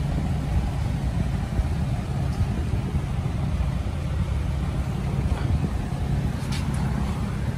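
Steady low mechanical hum of a running machine or motor, with a few faint ticks.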